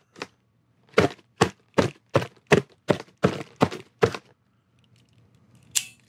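Schrade Uproar out-the-front knife stabbing into a heavy-duty cardboard box about nine or ten times in quick succession, roughly three sharp thunks a second, then a click near the end.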